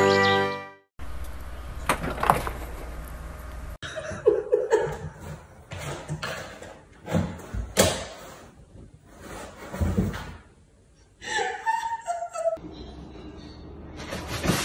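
A run of short household clips: repeated knocks and thumps, with some brief voices and laughter in between.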